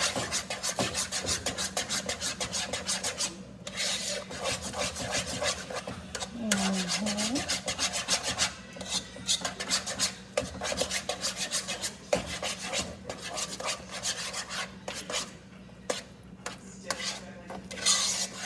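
A utensil scraping and mashing through mashed potatoes in a pot, in quick repeated strokes of about four a second as milk is worked in to smooth out the remaining lumps.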